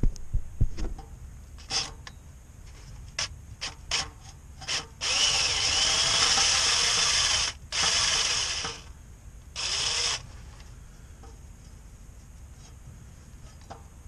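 Power drill driving a socket on an extension and swivel, run three times (about two and a half seconds, about a second, then half a second) to loosen bolts at the driveshaft U-joint, its motor pitch sliding as it loads. Before the runs, several sharp metal clicks of the socket and extension being set on the bolt.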